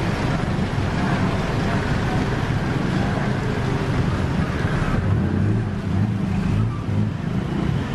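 Street traffic noise: a continuous rumble of vehicles on the road, with a low engine hum growing stronger about five seconds in.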